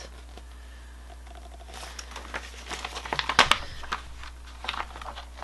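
Paper booklet being handled, its pages rustling and crinkling. The crackles begin about two seconds in, are loudest near the middle, and thin out into a few light ticks toward the end.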